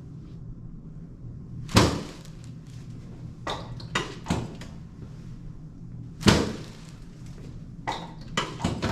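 Chiropractic adjusting table: two sharp thuds, about two and six seconds in, as a drop section gives way under the adjuster's thrust, with lighter clicks and knocks in between and near the end. A low steady hum runs underneath.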